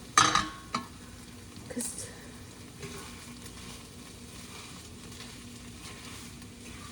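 Food sizzling in a frying pan, a steady quiet hiss. Near the start a utensil clatters sharply against the pan with a brief ring, and a smaller knock follows about two seconds in.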